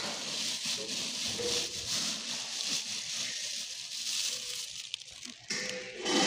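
Thin plastic bag crinkling and rustling as a hand digs into it and scoops up loose pearl millet seed, the grains pattering against the plastic; louder near the end.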